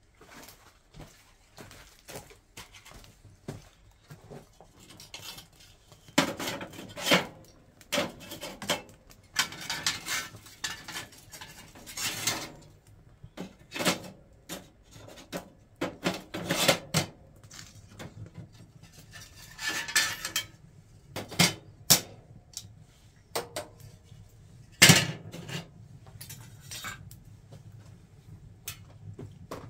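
Repeated metallic clanks and scrapes as the cast-iron lid rings of a wood cook stove are handled and set in place over a freshly lit fire. The strikes come irregularly, with the loudest one about 25 seconds in.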